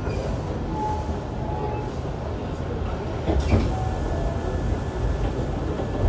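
Running sound from aboard a Hankyu 7300-series electric train with Toyo IGBT traction equipment: a steady low rumble of wheels on rail. A rush of hiss rises a little past the middle and fades about two seconds later.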